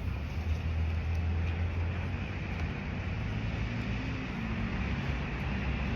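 Road traffic: motor vehicles passing, with a low engine rumble loudest in the first couple of seconds over steady tyre and road noise.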